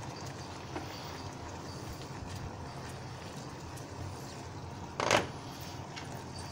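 Saffron cream sauce simmering steadily in a stainless saucepan while it is stirred with a wooden spoon, with one short, louder noise about five seconds in.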